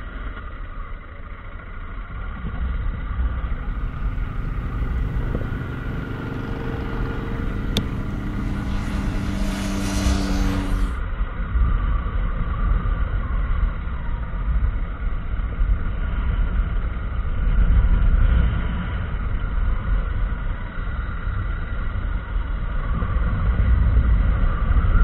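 Motorcycle riding along at road speed: wind rushing over the on-bike microphone over a low engine drone. For a few seconds about a third of the way in, a brighter hiss and a steady higher hum join in, then stop abruptly.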